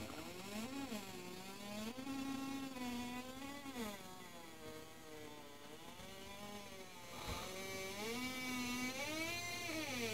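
A single buzzy electronic tone sliding slowly and smoothly up and down in pitch, like a wavering synthesizer melody, with a brief click about seven seconds in.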